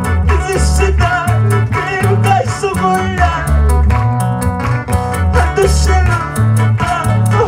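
A live band plays an upbeat worship song: an electric guitar melody over bass notes and a steady, even drum beat.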